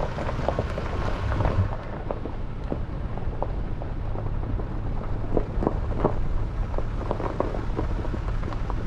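Toyota Tacoma pickup rolling down a rocky gravel road: a steady low rumble with the tyres crunching over loose stones, many small clicks and pops scattered throughout.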